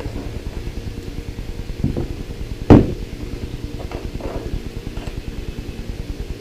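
A boxed power supply set down on a wooden table with one sharp, loud knock, with a few softer knocks and rustles of bundled power-supply cables being handled, over a steady low hum.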